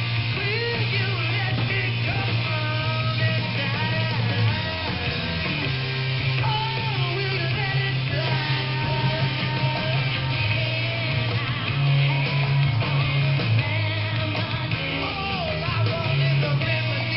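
Rock music with guitar and singing, over a steady bass line.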